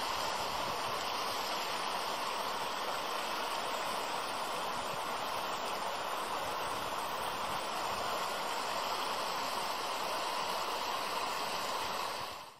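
Creek water flowing over rocks, a steady rushing that fades out at the end.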